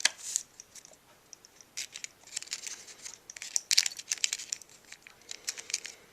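Leader of a roll of Ilford HP5+ 35mm film being threaded into the take-up spool slots of an open SLR camera: clusters of short, dry crackles, scrapes and small clicks as the film edge rubs against the spool and camera body, with brief quiet gaps between.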